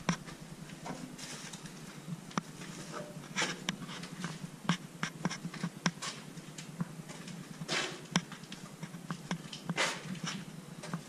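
Footsteps crunching and scuffing on rubble and grit in a brick tunnel, irregular steps with a few short breathy rushes.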